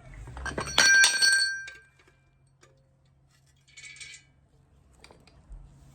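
A piece of metal struck or dropped, ringing briefly at several pitches, then a second, fainter metallic clink a few seconds later.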